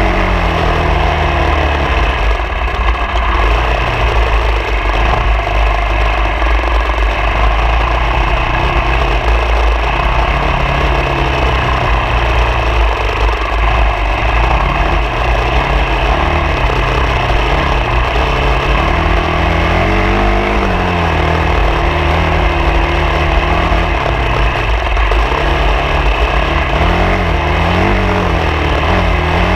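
Vehicle engine running on an off-road trail, its revs rising and falling again and again under loud, steady road and wind noise.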